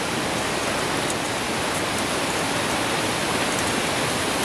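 Steady rushing noise of fast-flowing floodwater, even and unbroken.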